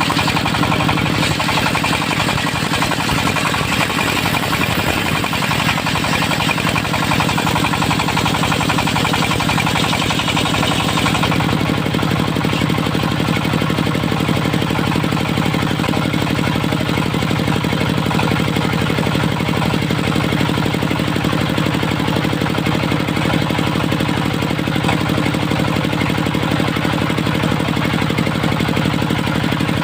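Dongfeng diesel engine running steadily as it drives a circular sawmill, with a continuous knocking engine note. About eleven seconds in, the higher-pitched part of the sound drops away and the low engine hum comes forward.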